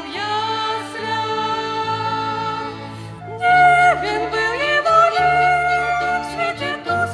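Song sung by female voices with a violin ensemble accompanying over held bass notes; a louder, wavering melody line comes in about three and a half seconds in.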